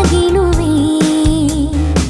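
Tamil Christian song: a woman sings, holding one long note over a band backing with a pulsing bass line.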